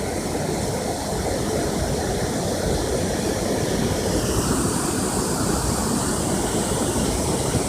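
Steady rushing of water pouring through a river dam, a continuous, even noise with no breaks.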